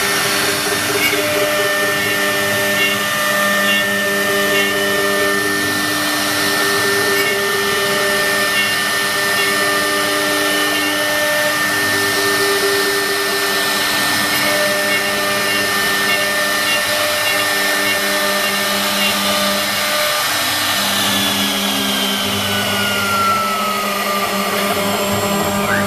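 CNC router working wood: the spindle runs with a steady high whine over the cutting noise, while the drive motors hum in changing tones as the gantry moves. Near the end the whine slides down in pitch.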